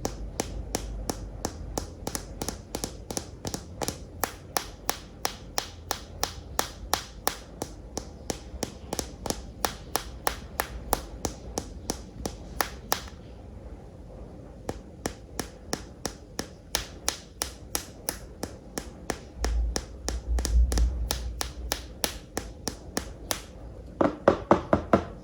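Steady tapping on hard plastic toys, about three or four sharp taps a second, with a short pause about halfway through. A low rumble comes about twenty seconds in, and near the end there is a quicker, fuller cluster of taps.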